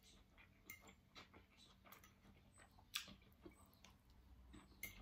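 Quiet eating sounds: a metal fork clicking and scraping faintly on a plate, with soft chewing. A few scattered small clicks, the sharpest about three seconds in.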